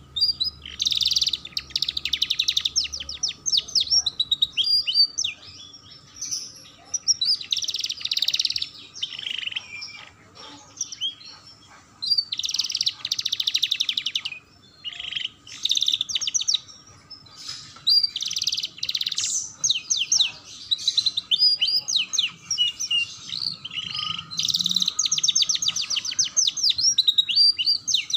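Domestic canary singing a long song of high, rapid trills and rolls, phrase after phrase, each lasting a second or two with short breaks between.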